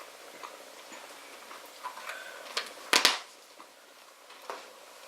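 Hollow plastic Easter eggs being handled and picked through: scattered light clicks and taps, with one louder plastic clatter about three seconds in.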